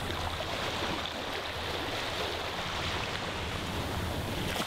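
Small waves washing up onto a sandy beach, a steady wash of surf.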